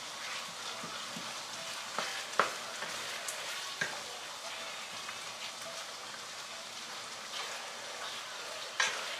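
Ground beef sizzling steadily over low heat in a speckled nonstick wok while a wooden spatula stirs and scrapes it, with a few sharp knocks of the spatula against the pan.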